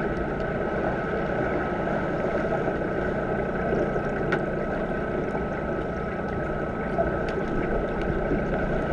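Underwater pool sound picked up by a submerged camera: a steady rushing of water stirred by finning swimmers, with a constant high hum and a few faint clicks and knocks.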